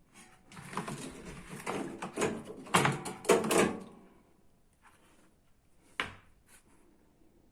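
Hands working on washing-machine parts: about three seconds of rubbing and scraping with several knocks, then a single sharp click about six seconds in.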